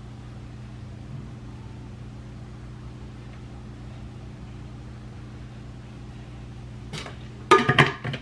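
Steady low hum of a kitchen appliance. Near the end comes a quick run of sharp pats and knocks as a salmon croquette patty is pressed and shaped by hand.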